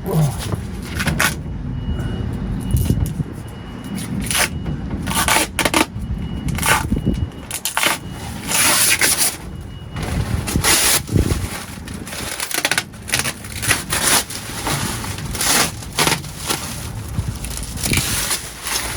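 Protective plastic film being peeled and pulled off a clear plastic window pane, with repeated irregular crackling and scraping and longer rustling stretches about halfway through.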